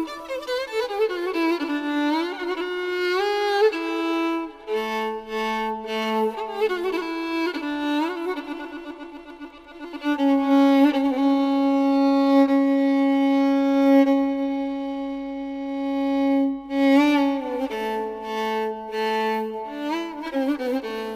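Background music: a slow violin melody, the notes wavering and sliding between pitches, with one long held note about halfway through.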